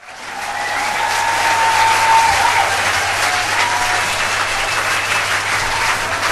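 Audience applauding, rising quickly at the start and then steady.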